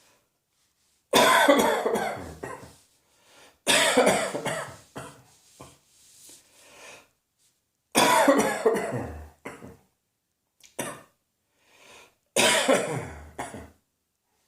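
A person coughing in four loud fits, each a quick run of several coughs that trails off, spaced a few seconds apart.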